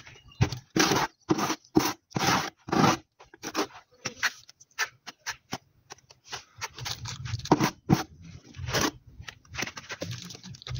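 A trowel scraping through wet cement tile adhesive as it is scooped up and spread onto the wall, in a run of short, uneven strokes.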